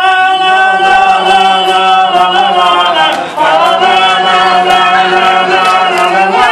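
Male chanting in long, held sung notes: two sustained phrases with a short break about three seconds in.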